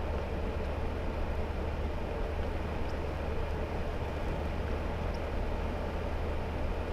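Hummer H3 driving on a wet road, heard from inside the cabin: a steady low hum of engine and drivetrain under an even rush of road noise.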